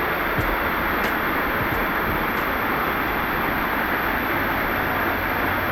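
Waterfall rushing, a loud, steady, even roar of falling water, heard from behind the falling water.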